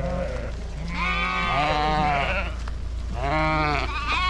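Sheep in a moving flock bleating: a long wavering bleat about a second in, a shorter one near the three-second mark, and another starting near the end, over a steady low hum.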